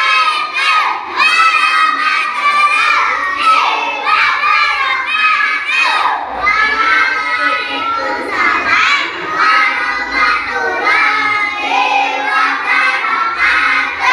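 A group of young children shouting and singing together loudly, with many high voices overlapping at once.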